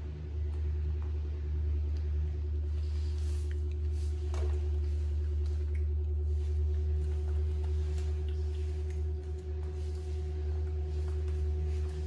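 A steady low hum with a thin, steady higher tone above it and a few faint clicks.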